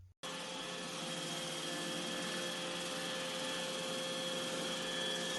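Suction motor of an iRobot Roomba j7+ starting abruptly and running steadily, a rushing air noise with a high whine.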